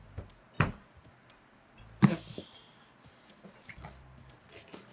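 A cardboard box being handled and set down on a desk: a knock about half a second in, then a louder knock about two seconds in with a brief brushing hiss, and a few lighter taps.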